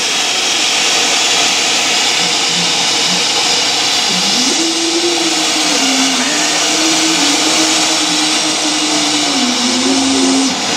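Loud, steady hiss of steam jetting from beneath a Class 37 diesel locomotive's bodyside. About four seconds in, a low droning tone joins and wavers slightly in pitch.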